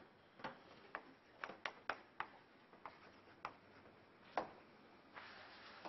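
Chalk writing on a chalkboard: a string of irregular sharp taps and short scratches as the chalk strikes and drags, with a longer scraping stroke near the end.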